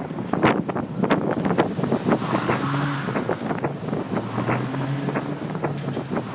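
Wind buffeting the microphone in gusts, with many short crackling pops. From about two and a half seconds in, a steady low hum comes and goes underneath.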